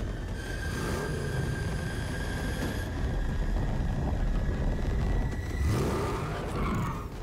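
The Batmobile's engine rumbling heavily with a steady high whine, revving up and down in two swells, about a second in and again near six seconds.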